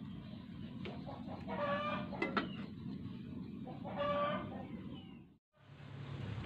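A chicken calling twice, each call drawn out, about two and a half seconds apart, over a steady hiss from the gas burner under the pot. About two seconds in there is a pair of sharp clicks as the aluminium lid is set on the pot.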